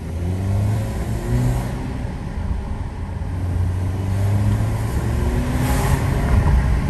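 Turbocharged 2.0-litre four-cylinder engine of a 2011 Audi Q5 2.0T accelerating, its pitch rising in steps, with a short hiss about six seconds in. This is the engine's normal sound, without compressor surge.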